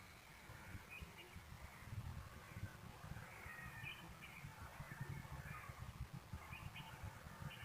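Faint, high kitten squeaks and mews, short and scattered, over a low rumble.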